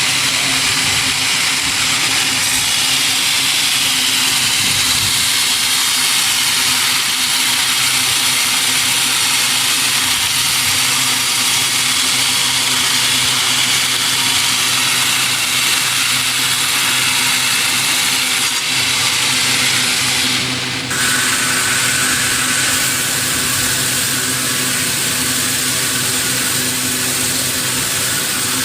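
Sawmill saw and machinery running steadily: a constant mechanical hum with a dense hiss over it. The sound changes abruptly about two-thirds of the way through.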